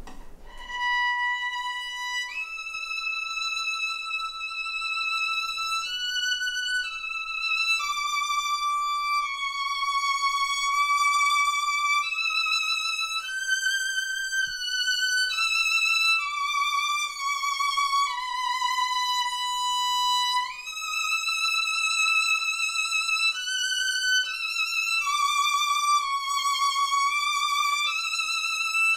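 Solo violin played with long, slow bow strokes: a slow melody of held, vibrato notes, one to two seconds each, in a high register. The bow pressure is gradually increased, so the tone grows fuller and a little louder.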